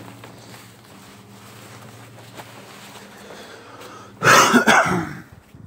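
A person coughs once, about four seconds in, for about a second; it is the loudest sound. Before it there is only a faint, steady low hum.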